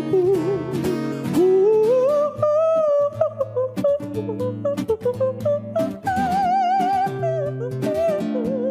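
Strummed acoustic guitar under a solo voice singing a wavering melody with a wide vibrato, sliding up in pitch about two seconds in.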